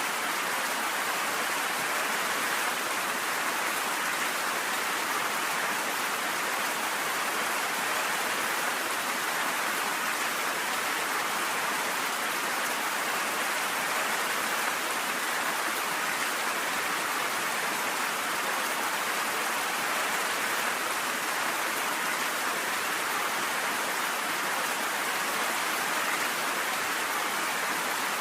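Steady rain falling, an even hiss that does not change, with no thunder.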